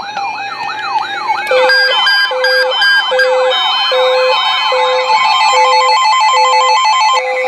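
Several weather alert radios sound their alarms at once for an incoming tornado warning. A fast electronic siren sweeps up and down, and about a second and a half in it is joined by a second, quicker warble and a steady on-off beep. Later a rapid alternating two-tone alarm comes in as well.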